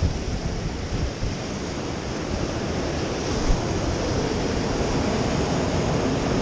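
Ocean surf breaking and washing over the boulders of a rock jetty: a steady rush of foaming water.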